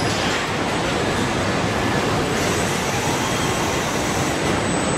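Steady mechanical din of a car-body assembly line, with welding robots and body conveyors running. A higher hiss joins for about two seconds in the middle.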